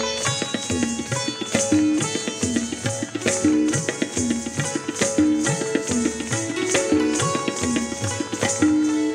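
Indian classical dance music: tabla drumming in a steady rhythm under a melodic instrumental line.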